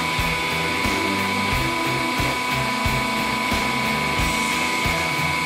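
Background music with a steady beat, about three beats every two seconds, over a steady high whine from the hydraulic press's motor as the ram comes down.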